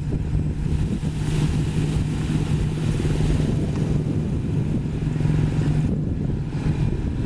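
Sany SY215C excavator's diesel engine running steadily, with a rushing wash of water pouring out as the bucket dumps puddle water, from about a second in until about six seconds.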